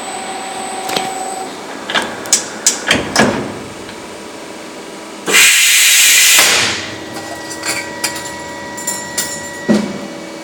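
CNC metal-spinning machine running with a steady hum, broken by a series of knocks and clunks, then a loud hiss lasting about a second, followed by a few more clicks.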